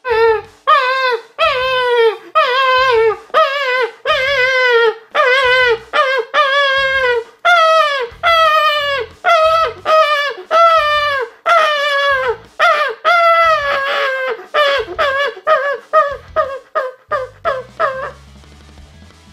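A man's natural-voice animal call: about two dozen short, high calls, each falling in pitch, coming closer together toward the end and stopping about a second before it.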